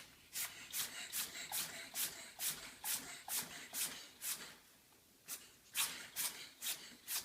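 An animal breathing in short, regular puffs, about two to three a second, with a brief pause near the middle.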